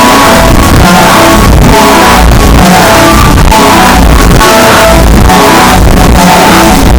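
Music played very loud, pinned near full volume throughout, with sustained notes over a dense, noisy wash and a recurring pulse.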